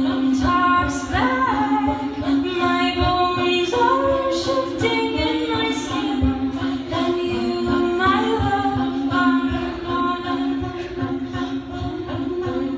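A cappella vocal group singing in harmony, several voices over a held low note, with short low beats keeping time.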